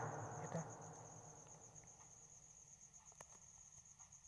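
Crickets chirping: a faint, steady, rapidly pulsing high trill, with one soft click about three seconds in.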